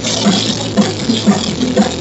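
Live rock band playing, with the bass loud and distorted from the bass amplifier close by, and a steady beat about twice a second.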